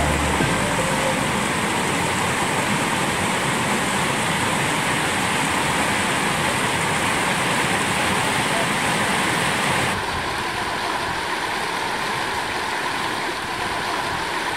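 Mountain stream rushing and tumbling over boulders, a steady, even roar of water. About ten seconds in the sound changes to a slightly quieter, duller rush, as from another stretch of the stream.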